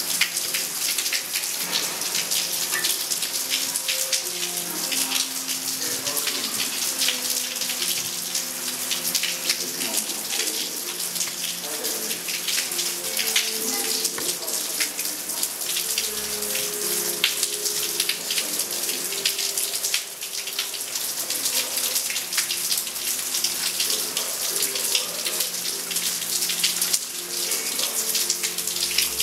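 Rain falling steadily: a dense hiss of countless drops with fine spattering ticks.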